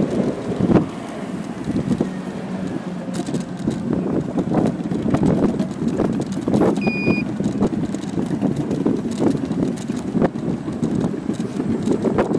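Rolling noise of an electric scooter on a paved path: a steady rumble broken by frequent knocks as the small wheels cross the slab joints. A short electronic beep sounds about seven seconds in.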